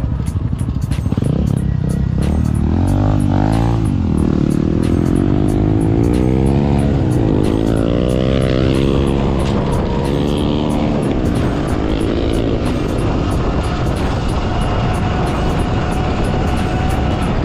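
Off-road motorcycle engine riding on a gravel track, its revs rising and falling several times as the throttle is worked and gears change, over a steady low rumble of wind and ride noise.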